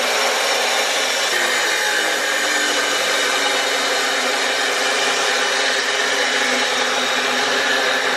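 DeWalt abrasive chop saw running steadily as its cutoff wheel grinds through steel exhaust pipe, a continuous whine with grinding.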